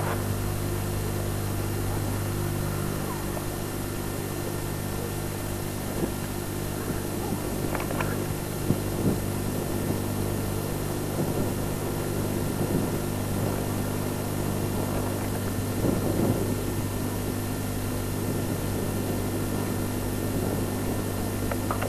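A steady low mechanical hum that holds one pitch throughout, with a few faint brief sounds, like distant voices, around the middle and later on.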